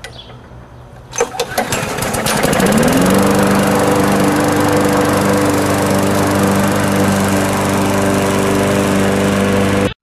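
Gasoline walk-behind lawn mower pull-started: the engine sputters and catches about a second in, climbs to speed over the next two seconds, then runs steadily at full throttle.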